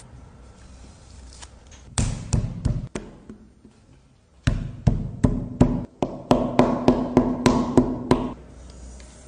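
Mallet beating a slab of clay flat on a wooden table: a few strikes, a pause, then a run of about a dozen dull, evenly spaced thuds, roughly three a second.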